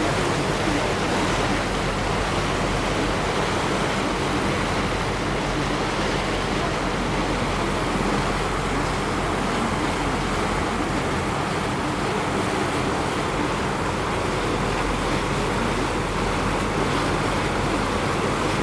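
Steady rushing noise aboard a moving river tour boat, wind and water with a low steady hum underneath.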